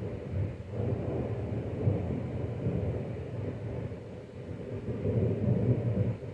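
Thunder rolling in a long, deep rumble that swells and ebbs, then drops away abruptly near the end.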